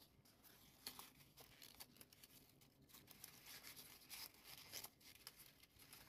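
Faint rustling and crinkling of stiff paper as origami units are handled and slotted into one another, with scattered soft crackles.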